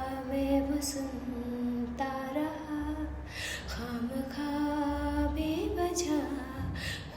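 A girl singing unaccompanied, holding long drawn-out notes that slide up and down between pitches, with a few short hissy sounds between phrases.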